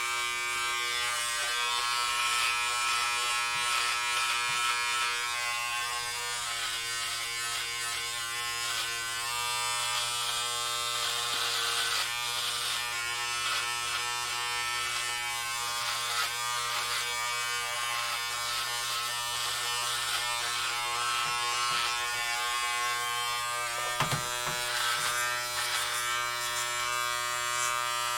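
Electric hair clippers buzzing steadily as they cut hair, with one sharp click late on.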